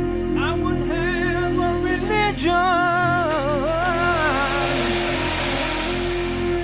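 Gospel music: steady held keyboard chords under a high melodic line with wide vibrato that fades out about five seconds in, and a hissing wash like cymbals from about three seconds.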